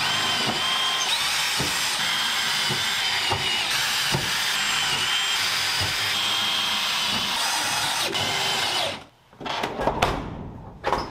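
Cordless drill running almost without a break as it drives self-tapping screws through carpeted door panels into a truck door, its motor whine wavering a little. It cuts off about nine seconds in, followed by a couple of sharp knocks.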